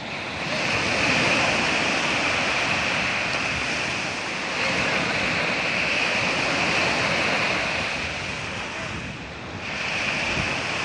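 Small waves breaking and surf washing up a sandy shore, swelling and easing every four to five seconds, with wind on the microphone.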